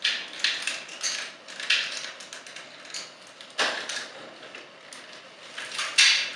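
Hard plastic parts of a Transformers toy figure clicking and knocking as it is handled and reconfigured, with irregular light clicks and two sharper snaps, about three and a half seconds in and near the end.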